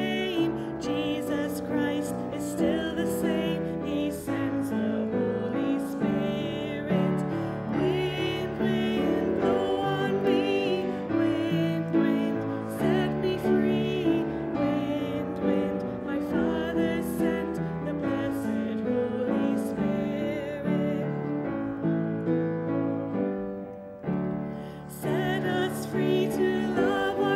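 A hymn played on piano, with singing. The music dips briefly about four seconds before the end, at a break between verses.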